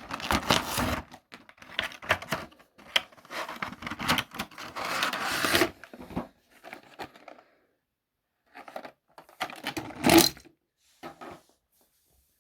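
Cardboard and plastic blister packaging being torn and pulled open by hand, with irregular tearing, crackling and scraping and a sharp, loud crackle about ten seconds in. Small die-cast toy cars are being freed from the pack.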